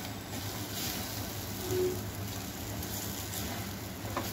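Soybeans and masala sizzling in an earthenware pot while a wooden spatula stirs them, with a few soft scrapes against the clay.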